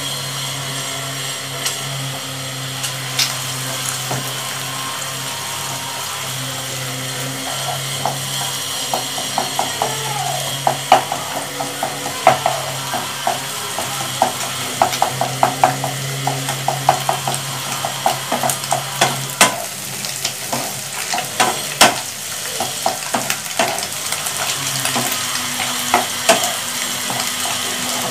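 Vegetables and an egg frying and sizzling in a nonstick pan. From about a third of the way in, a spatula scrapes and taps against the pan as the egg is scrambled and stirred through, in many quick strokes. A low steady hum runs underneath for the first two-thirds, then stops.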